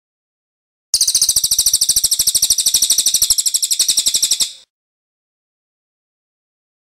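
A songbird's rapid, high-pitched trill of about fifteen notes a second, starting about a second in and lasting about three and a half seconds before stopping abruptly. It is a recorded cage-bird song from a masteran training track of cililin (crested jay) and ciblek (bar-winged prinia).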